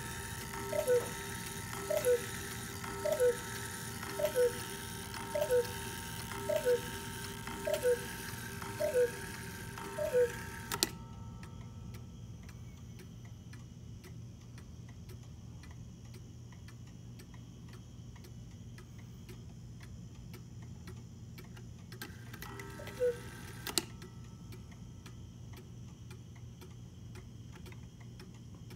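Antique Johann Baptist Beha Black Forest cuckoo clock calling the hour: a run of two-note cuckoo calls from its bellows and pipes, a bit more than a second apart, ending with a click about ten seconds in. Then the clock ticking, and a single cuckoo call followed by a click a few seconds before the end.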